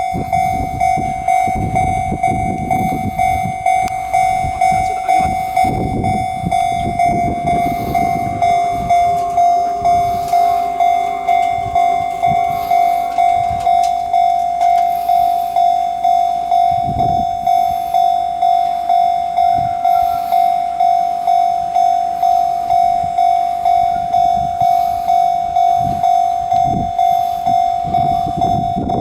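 Japanese level-crossing warning alarm ringing on and on, a single ringing tone repeating about one and a half times a second.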